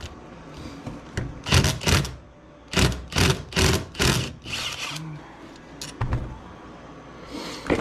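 Tool work on the crankcase bolts of a Suzuki LTZ400 engine being taken apart: a run of short, loud mechanical bursts. There are two about a second and a half in, then four more over the next couple of seconds.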